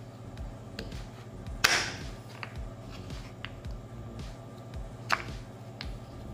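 Kitchen knife cutting frozen strawberries and knocking against a wooden cutting board: two sharper chops, about one and a half seconds in and about five seconds in, with lighter taps of the blade between.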